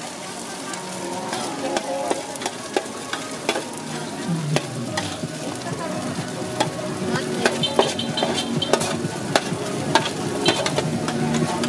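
Metal spatula scraping and clanking irregularly against a large flat steel frying pan as stir-fried noodles are scooped up, over a steady sizzle of hot oil.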